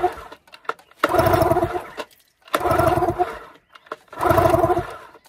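Yamaha 15 hp twin-cylinder outboard cranked over by hand on its recoil pull-starter, with both spark plugs out and a compression gauge fitted: a compression test. There are three full pulls about a second and a half apart, each a second-long pulsing whir of the engine turning over, with light clicks between pulls.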